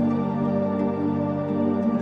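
Background music: a calm new-age track of sustained tones that shift slowly in pitch.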